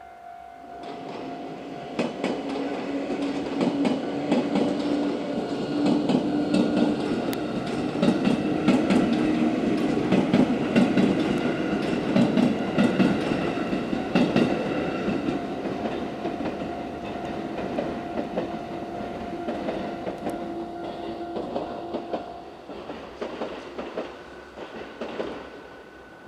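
JR West 221 series six-car electric train passing over a level crossing, wheels clacking over the rail joints. It comes in about a second in, is loudest in the middle and fades away near the end. A level-crossing warning bell rings steadily under it and falls away about four seconds before the end.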